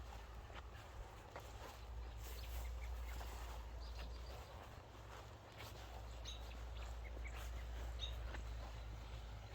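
Outdoor ambience: wind rumbling on the microphone, with a few faint, short bird chirps.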